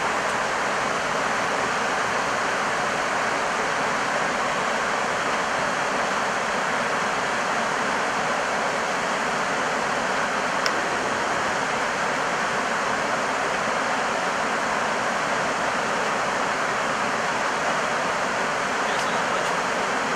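Steady rushing noise on an Airbus A320 flight deck in flight: airflow around the nose and windscreen together with the air-conditioning, unchanging throughout. One faint click about halfway through.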